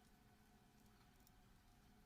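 Near silence: room tone with a faint steady hum and a couple of very faint ticks about a second in.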